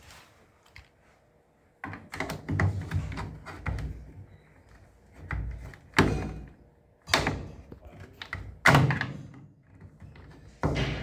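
Irregular thuds and knocks, about half a dozen over several seconds, with quiet gaps between them.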